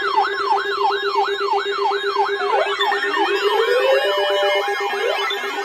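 Several weather alert radio alarms going off together: a siren-like tone sweeping up and down about two and a half times a second over a steady, pulsing lower tone, with more alarm tones and a slow rising sweep joining about three seconds in. They are sounding for an incoming severe weather alert.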